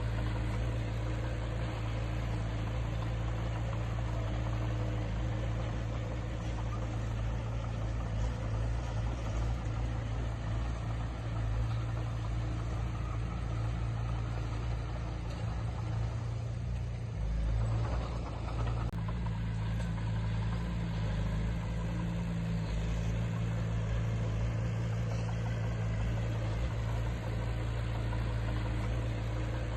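Diesel engine of heavy earthmoving machinery running steadily, a low even drone with no revving.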